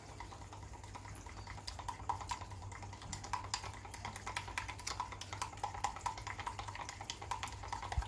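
A stick stirring acrylic pouring paint in a small cup, giving rapid, irregular ticks and scrapes against the cup wall that grow busier about two seconds in. This is the paint being mixed further to work out a remaining lump.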